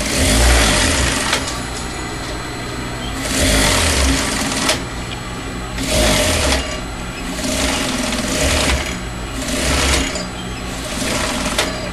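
Electric sewing machine stitching in short runs, stopping and starting several times.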